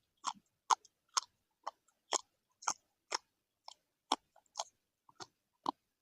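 A person chewing a mouthful of food close to the microphone: short crisp mouth clicks about twice a second, fairly even in rhythm.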